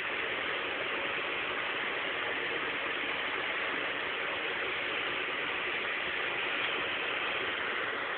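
Steady hiss-like background noise, even in level throughout, with no distinct sounds standing out.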